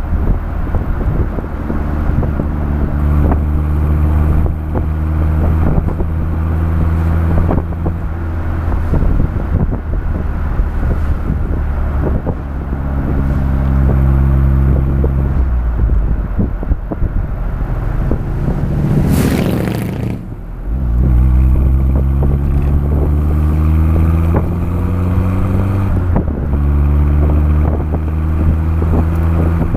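Honda City Turbo I's turbocharged four-cylinder exhaust, heard from the tail of the car while driving, pulling up in pitch through several accelerations and gear changes and dropping back in between. A brief hiss cuts in about two-thirds of the way through.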